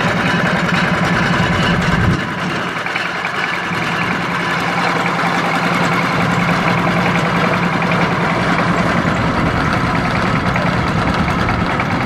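Boat engine on a ferry's deck, running steadily and turning a long-tail propeller shaft, with a fast even chugging pulse. The sound changes about two seconds in.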